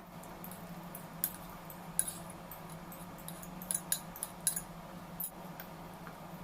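Scattered light clicks and clinks, a dozen or so sharp ticks bunched around the middle, over a faint steady hum.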